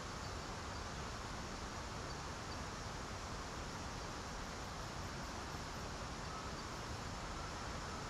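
Steady rush of flowing water, an even hiss that does not change. About halfway through there is a faint run of high, evenly spaced chirps.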